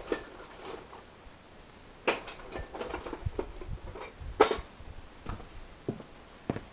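Irregular metallic clicks and knocks of a spanner and metal parts being handled on a chainsaw engine, the sharpest knocks about two seconds in and again past four seconds.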